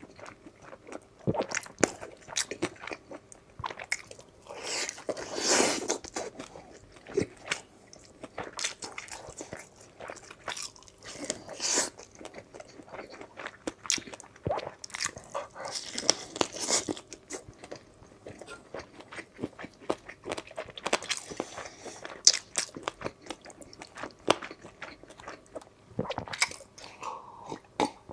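Close-miked biting and chewing of crispy, chili-coated fried chicken, with sharp crunches coming in irregular bursts every few seconds.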